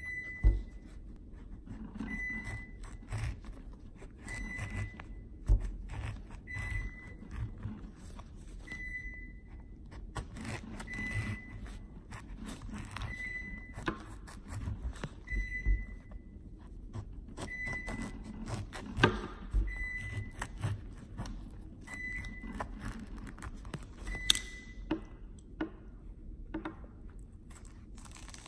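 A white knife scoring and scraping a grapefruit's rind, with hands turning the fruit: soft scrapes, clicks and a few sharp thunks, and the peel starting to pull away near the end. A short high beep repeats every one to two seconds through most of it and stops a few seconds before the end.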